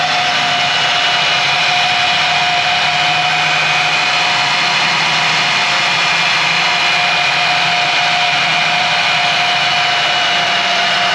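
Handheld electric diamond core drill boring through brick: a steady motor whine with a dense grinding hiss, holding an even pitch and level.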